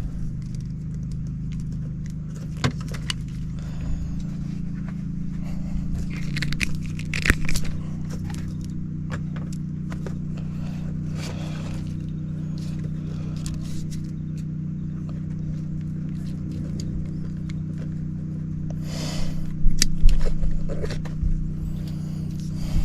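A steady low machine hum, with small clicks, scrapes and rattles of hand work on wiring at a zone control board; a louder rustling scrape comes near the end.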